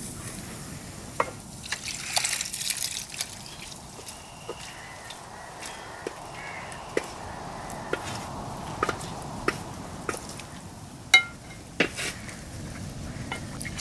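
A wooden spatula stirring thick beef curry in a wide metal pot, the curry bubbling and sloshing, with short knocks of the spatula against the pot about once a second. A louder sharp metallic clank comes near the end.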